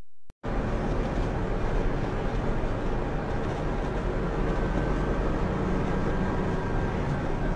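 Truck engine and road noise while driving, heard from inside the cab: a steady, dense rumble that begins abruptly about half a second in.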